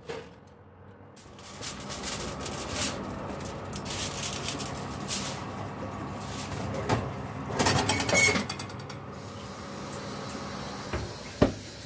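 Electric oven running with a steady low fan hum, while the wire oven rack and a glass baking dish clatter and clink as the dish is slid in and out; a sharp click near the end.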